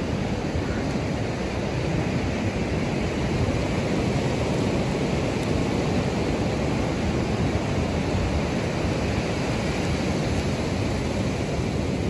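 Ocean surf breaking and washing up a sandy beach: a steady rushing noise with no pause.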